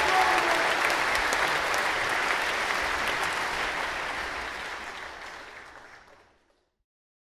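Audience applauding, a dense patter of clapping that fades out steadily over about six seconds and then stops.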